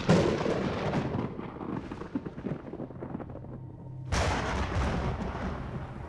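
Film battle sound effects: a loud boom at the start trailing into dense, rapid crackling gunfire, then a second sudden boom about four seconds in.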